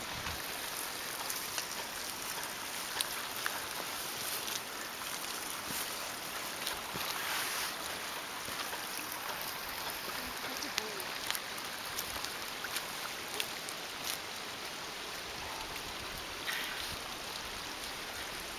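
Rain falling: a steady hiss with scattered sharp ticks of drops.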